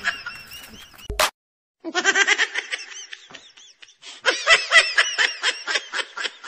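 High-pitched laughter in rapid ha-ha pulses. It breaks off with a click and half a second of silence about a second in, then starts again.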